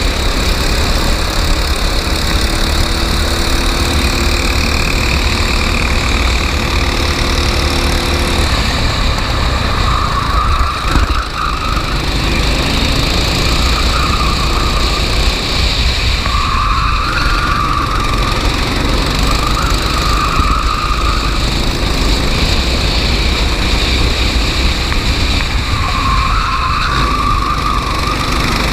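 Racing kart engine running hard without a break, with several short squeals of about a second each, typical of the tyres sliding through corners.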